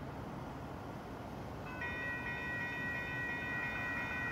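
Railroad crossing warning bell starts ringing less than halfway in, steady ringing tones over low background noise: the crossing signal has just activated for an approaching train.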